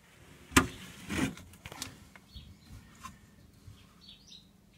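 A sharp knock about half a second in, then a rustling scrape and a few lighter clicks, while a small bird chirps faintly a few times.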